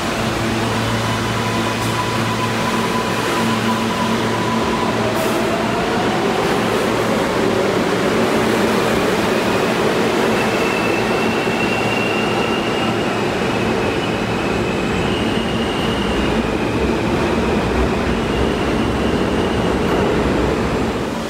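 R143 subway train running on the rails: a loud, steady rumble with thin whining tones that rise slowly in pitch through the middle and later part.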